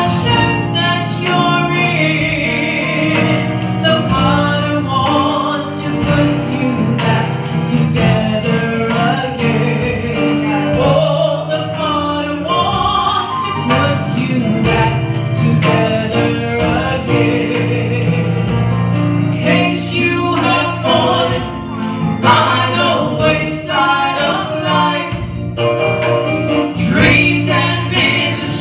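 Live gospel praise singing: women's voices sung into microphones over keyboard and band accompaniment, with a steady beat.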